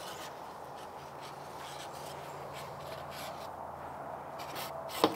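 Damp cloth rag rubbing along a fiberglass mast pole in short scratchy strokes, with a sharp knock about five seconds in.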